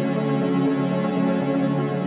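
Background music: slow, sustained ambient tones held steady, with no beat.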